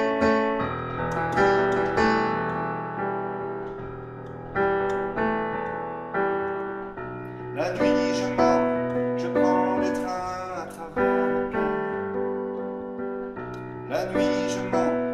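Digital piano played in slow chords, each struck about once a second and left to ring and die away.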